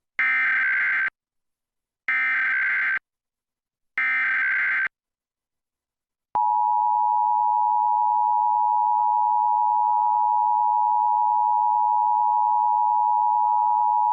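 Emergency Alert System tones. First come three short bursts of warbling SAME digital header data, each about a second long and about a second apart. After a short gap, about six seconds in, the steady two-tone attention signal begins and holds for about eight seconds.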